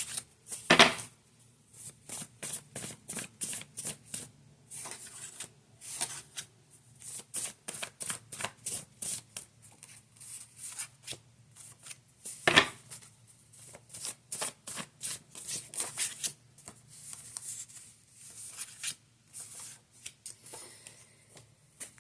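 Tarot cards being shuffled by hand: a long run of quick card snaps and clicks, with two louder knocks, one about a second in and one about twelve and a half seconds in.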